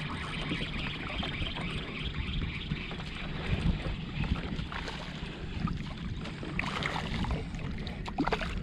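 Steady wind and water noise on an outdoor microphone, with a low rumble and a few light knocks.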